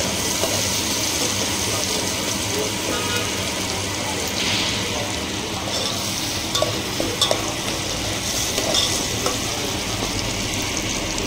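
Chopped onion and tomato sizzling in hot oil in a pan as a spoon stirs them, with a few clinks of the spoon against the pan a little after halfway through.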